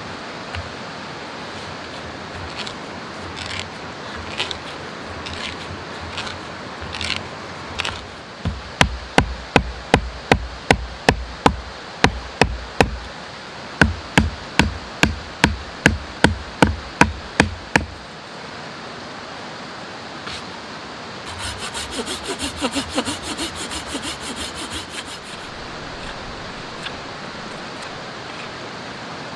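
Hammer blows driving a wooden stick leg into a hole bored in a log round: two runs of steady strikes, about three a second, each run lasting some four seconds. A few seconds of rasping, scraping wood follow near the end, over the steady rush of a stream.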